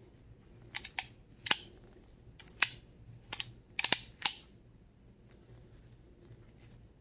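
Vintage Browning Challenger .22 LR pistol's steel action being worked by hand: the slide drawn back and let go. It makes a string of about seven sharp metallic clicks and clacks over some four seconds.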